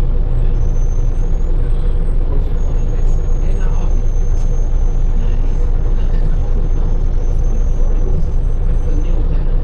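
Scania L94UB bus's rear-mounted diesel engine running steadily, heard from the back of the cabin: a constant low drone with a thin high whine over it.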